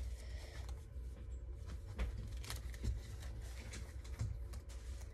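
Pokémon trading cards being handled and shuffled through by hand: faint scattered rustles and light taps of card stock, over a steady low hum.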